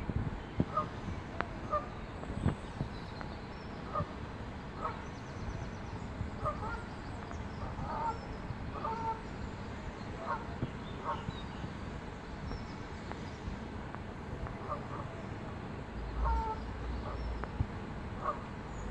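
Water birds calling in short, repeated notes, about one or two a second, over a low rumble.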